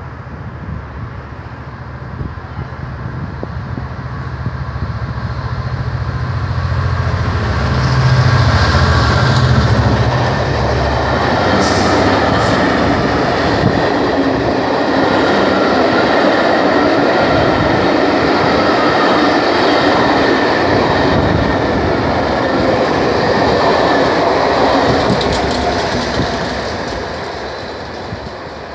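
A Class 67 diesel-electric locomotive (EMD two-stroke V12) approaches and passes at speed, its low engine drone building to its loudest about eight to ten seconds in. Then come the steady rumble and clickety-clack of the Pullman coaches' wheels on the rails, with a few sharp clicks. The sound fades near the end as the train draws away.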